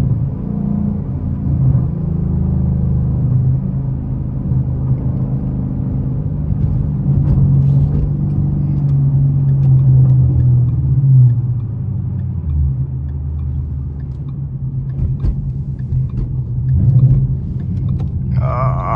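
Ford Mustang 5.0 V8 heard from inside the cabin, a low engine drone while cruising. Its pitch rises and falls with the throttle. A short wavering higher-pitched sound comes near the end.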